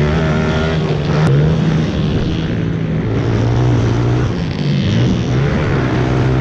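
Several pit bike engines running at once, their pitches rising and falling as the bikes are throttled.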